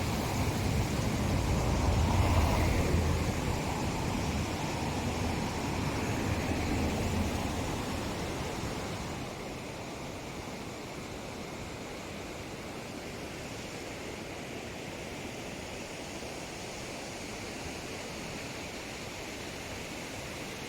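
Rushing river water, a steady noisy roar. It is louder with more low rumble for the first eight seconds or so, then settles lower and steadier from about nine seconds in.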